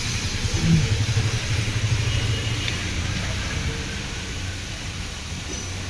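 A motor or engine running with a low, steady rumble and a light hiss above it, loudest about a second in and easing off toward the end.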